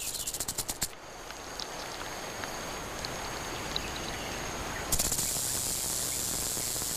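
Rattlesnake shaking its tail rattle as a defensive warning: fast dry clicks in the first second, a softer steady buzz through the middle, then a loud continuous buzz from about five seconds in.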